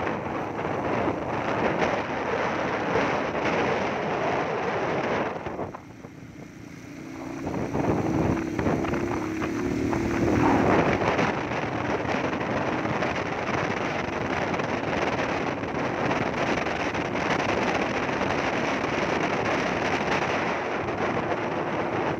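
Wind rushing over the microphone of a moving motorcycle, with its engine running underneath. The rush drops away briefly about six seconds in, and a steady engine hum comes through before the wind rises again.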